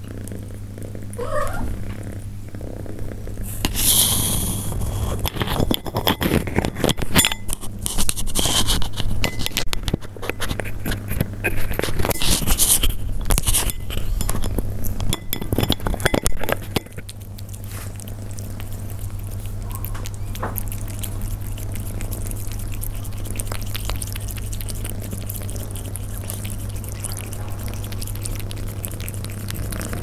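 Persian cats eating close to the microphone: rapid chewing and crunching clicks, densest in the first half, stopping about seventeen seconds in. A steady low hum runs underneath throughout.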